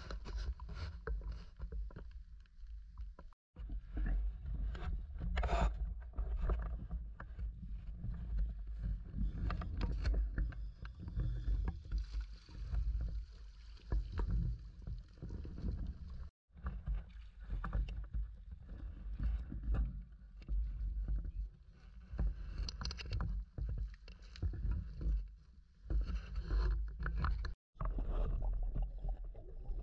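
Water sloshing and splashing against the camera, heard as an irregular low rumble with scattered splashy bursts; it cuts out briefly three times.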